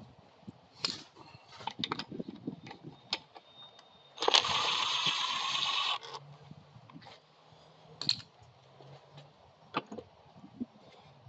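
Light clicks and knocks of metal engine parts and tools being handled on a bench. About four seconds in, a loud hiss lasts nearly two seconds and cuts off suddenly.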